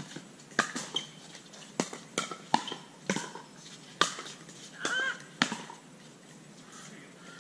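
Pickleball rally: a hard plastic pickleball popping off paddles in a quick volley exchange, about eight sharp pops at uneven spacing that stop about five and a half seconds in. A brief squeak that bends in pitch comes just before the last pop.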